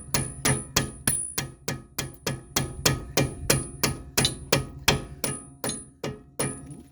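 A hammer tapping rapidly and evenly, about three to four blows a second, driving a bolt through a suspension bushing, with a faint high metallic ring; the blows stop shortly before the end.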